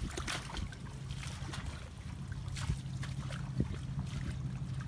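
Shallow water sloshing and splashing as a bamboo pole is worked through a weedy ditch, with scattered short splashes and knocks over a steady low hum.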